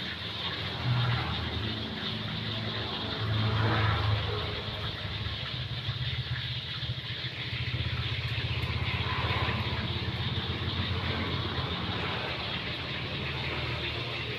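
A motor vehicle engine running: a low hum that swells about a second in, again around four seconds, and for a longer stretch from about eight to twelve seconds in.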